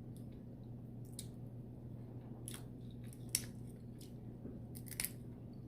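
Faint chewing with scattered sharp clicks and crackles of seafood shells being cracked and picked, a cluster of them about five seconds in.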